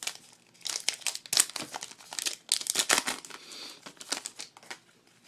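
Crinkling of a trading-card pack's foil wrapper as it is torn open and handled, a dense run of short, irregular crackles.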